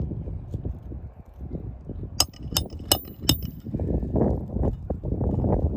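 Metal roofing tools working on asphalt shingles: four sharp, ringing metallic clinks about a third of a second apart, then scraping and rustling of the shingles as they are handled.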